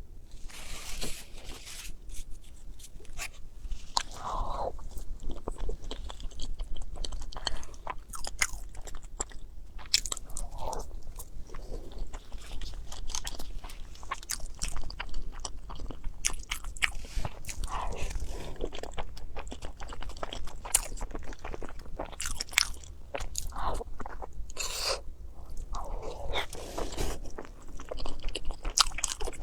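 A person chewing and biting food close to the microphone: many sharp crunches and mouth clicks throughout, with no talking.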